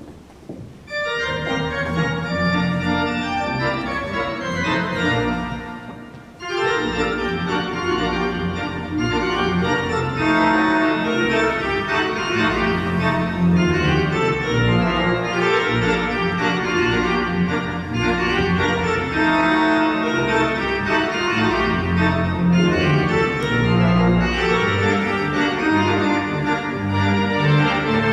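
Metzler pipe organ playing a piece, chords over deep bass notes. It drops back briefly about six seconds in, then carries on at full strength.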